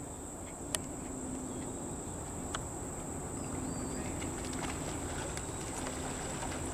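Steady high-pitched insect chorus droning, with a couple of faint clicks.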